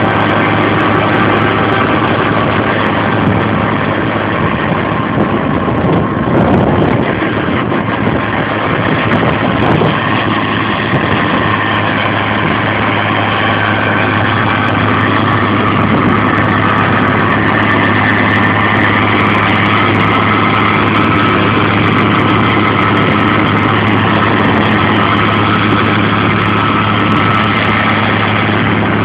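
Tractor engine running steadily under load, working a Tozamet FG-650B soil stabilizer through the ground, with the machine's noise mixed into a continuous mechanical hum. It swells briefly about six seconds in.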